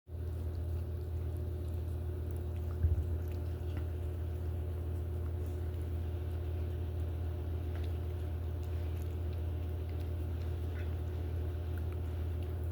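Cat licking and eating icing: faint, scattered small wet clicks and smacks over a steady low hum, with one brief knock about three seconds in.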